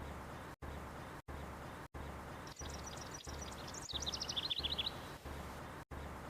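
A small songbird sings one quick phrase about two and a half seconds in: a run of high chirps that drops into a lower, faster trill and ends about two seconds later. Under it is a steady background hiss that cuts out briefly about every two-thirds of a second.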